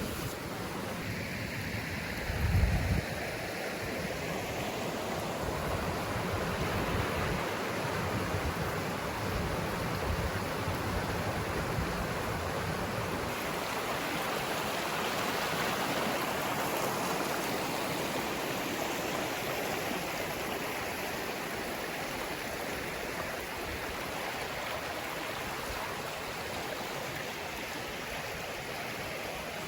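Forest stream rushing steadily over small cascades, with a brief thump of wind on the microphone a couple of seconds in.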